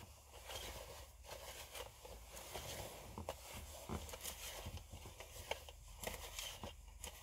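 Sticky lint roller being rolled over fabric pants: faint, irregular crackling and rustling as the adhesive sheet peels off the cloth.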